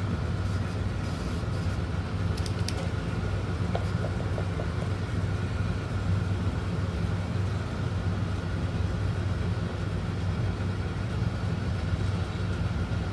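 Steady low machine hum with a faint high whine, such as a fan or air-conditioning unit running, with a few light ticks about two and a half and four seconds in.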